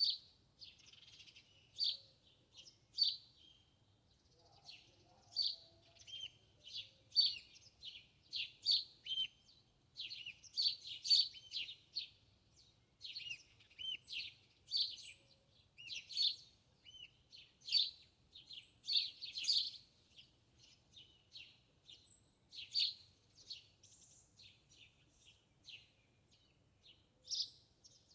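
Small birds chirping and twittering: many short, sharp high-pitched calls, several a second at their busiest, some with quick up-and-down pitch hooks.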